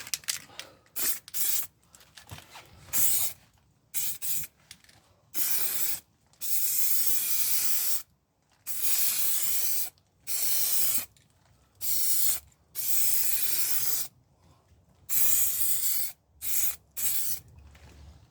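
High-build primer being sprayed onto a sanded dent repair in about a dozen separate bursts. Some are brief puffs and some last up to about a second and a half, each hiss cutting off sharply.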